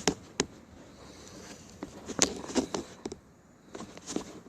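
Handling noise: a string of irregular sharp clicks and light knocks, about eight over four seconds.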